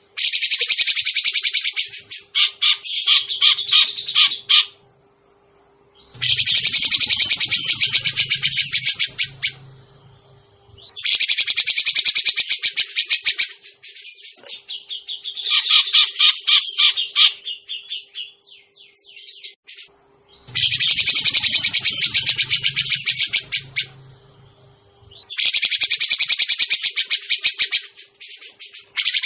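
Cucak jenggot (grey-cheeked bulbul) calls played as a bird-trapping lure: loud bursts of rapid, harsh chattering notes, each a few seconds long, repeated about six times with short pauses between.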